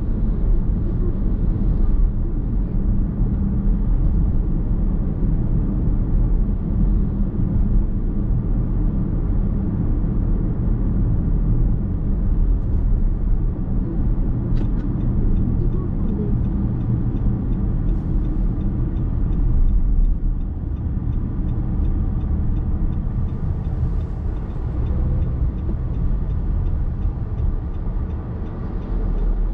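Steady in-cabin road noise from a car driving along: a low rumble of tyres and drivetrain. A faint, even ticking runs through the second half.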